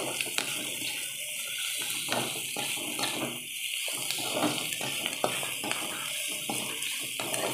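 Sliced onions, green chillies and crushed ginger-garlic sizzling in oil in a metal kadai, with a spatula stirring and scraping them in repeated irregular strokes, at the stage of sautéing until the raw smell goes.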